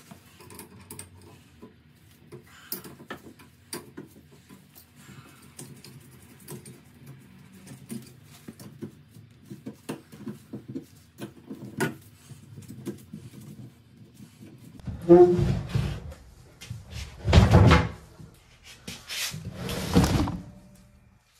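Faint clicks and small rattles of gloved hands working the supply lines and shut-off valves under a bathroom sink. Near the end come three loud rubbing knocks, each about a second long, as the camera is handled and moved close to the microphone.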